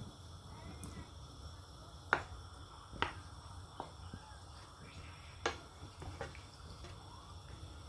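Faint kitchen sounds: a handful of sharp, irregular clicks, about six in all, over a low steady hum.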